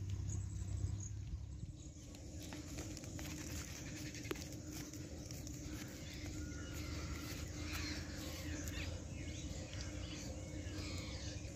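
Faint open-field ambience: light footsteps on dry soil and grass, with scattered faint bird chirps over a steady low hum.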